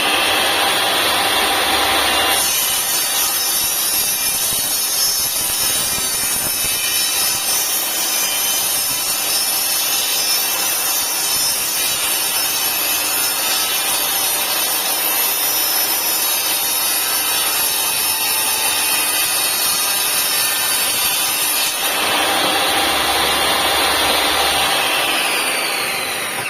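INGCO TS15007 table saw running with a steady high whine, then cutting through wood for about twenty seconds: the whine gives way to a harsh, dense sawing noise. Near the end it runs free again, and it begins to wind down just before the end.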